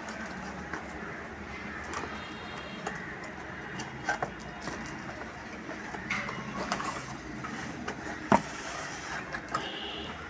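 Cardboard box and packaging being opened and handled: scattered clicks, knocks and rustles over a steady background noise.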